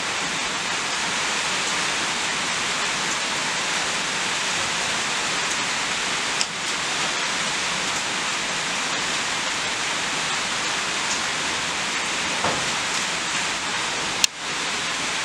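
A steady, even hiss of noise, like heavy rain or rushing water, with a light click about six seconds in and a sharper click near the end.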